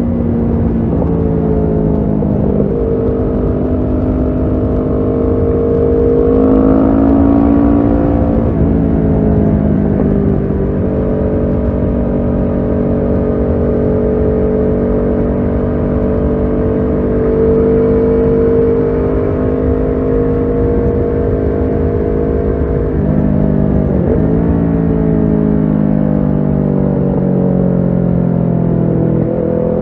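Kawasaki Ninja 650's parallel-twin engine running through a Shark SRC-4 full exhaust system under way: the engine note climbs under throttle a few seconds in and then drops sharply, holds steady for a long stretch, dips briefly about two-thirds through, and climbs again near the end.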